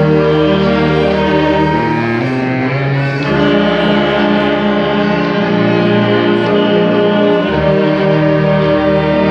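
Orchestra playing slow, held chords, the bass note changing every couple of seconds.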